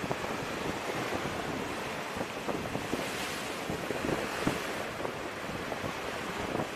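Wind rumbling and buffeting the microphone over open sea, with waves washing in a steady noise.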